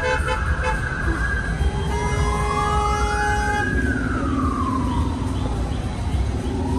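Emergency vehicle siren wailing: one slow rise and fall over about four seconds, then starting to rise again near the end, over a low rumble of traffic. A brief horn-like tone cuts off right at the start.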